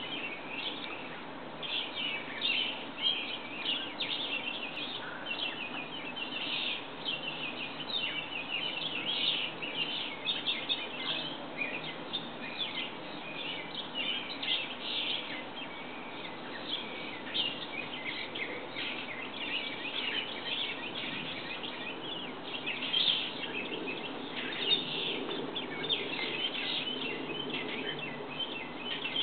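Outdoor birds chirping busily, many short high calls overlapping throughout, over a faint low steady background rumble.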